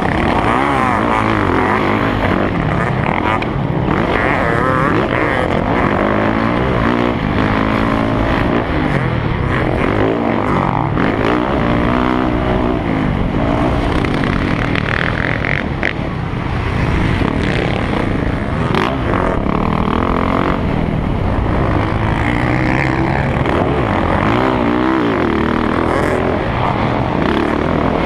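Motocross dirt bike engine heard close up from the rider's own bike, revving up and falling back again and again as it accelerates through the track's turns and jumps.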